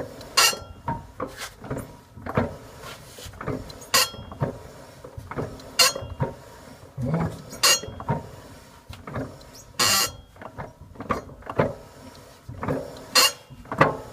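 Driveline of a jacked-up Lada Niva (VAZ-21310), turned by hand at the wheel, giving short, sharp metallic squeaks about every one and a half to two seconds. This is the intermittent squeak the owner suspects comes from a dry propshaft universal joint.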